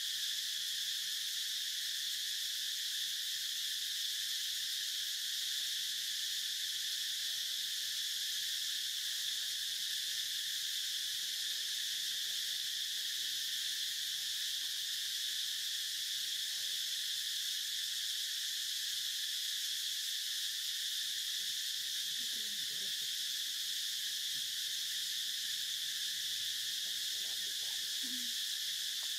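Steady, high-pitched chorus of insects, unchanging throughout, with a few faint low calls about two-thirds of the way in and again near the end.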